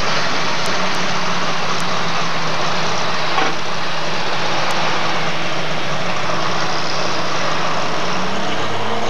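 Super stock pulling tractor engine running steadily at idle: a loud, even noise with a low drone beneath it.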